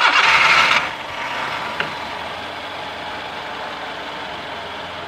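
Honda Civic's 16-valve four-cylinder engine catching with a loud burst for about the first second, then settling into a steady idle. It is being run with the radiator cap off to see whether coolant is pushed out, the test for a blown cylinder head gasket.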